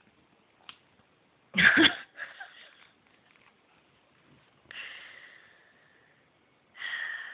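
Great Dane's nasal breathing sounds: one loud, sharp snort-like burst about one and a half seconds in. Then come two longer breaths, each with a thin whistling tone that fades out.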